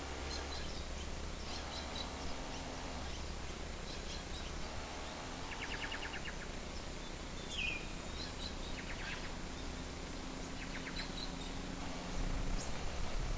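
Birds calling: several short, fast rattling trills and scattered high chirps, with one short falling call about halfway through, over a steady low rumble.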